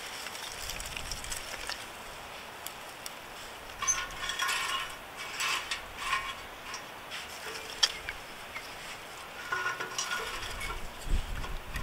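Scattered light clicks and clatters of small hard objects being handled, busiest about four to six seconds in and again near the end, over a faint low rumble.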